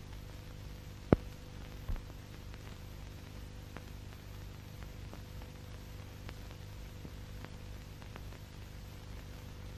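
Steady hiss and low hum of an old optical film soundtrack with faint crackle ticks, and a sharp click about a second in followed by a softer one shortly after.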